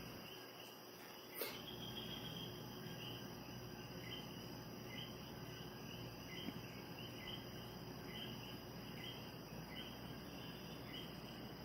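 Faint, evenly repeating high chirping of crickets in the background over a low steady hum, with one sharp click about a second and a half in.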